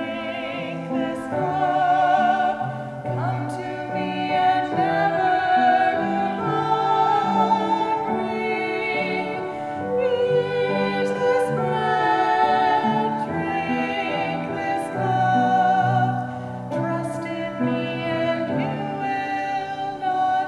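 Music: a singer with wide vibrato over piano accompaniment, in a classical style.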